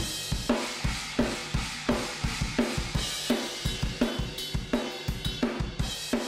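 A played-back rock drum-kit recording, heavily compressed. The snare cracks about every two-thirds of a second, with kick drum hits between and a steady wash of cymbals.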